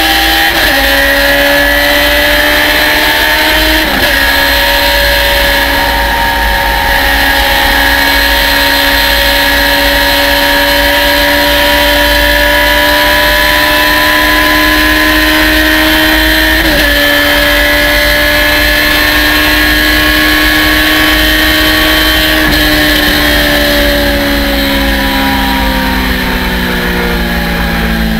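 Onboard sound of a Thunder Roadster race car engine at full throttle. The note climbs slowly in each gear and drops sharply at three upshifts, about half a second, four seconds and seventeen seconds in. Over the last few seconds the note falls steadily as the car slows, with wind rushing over the open cockpit throughout.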